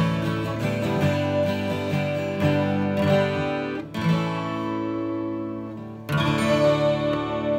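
Acoustic guitar strumming chords with no singing; about six seconds in, a fresh chord is struck and left ringing.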